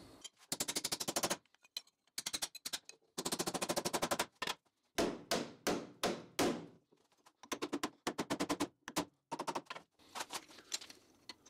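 Hammer blows on a wooden block, forcing a bent steel bracket clamped in a bench vise back straight. The footage is sped up, so the blows come as several rapid bursts of sharp taps with short gaps between them.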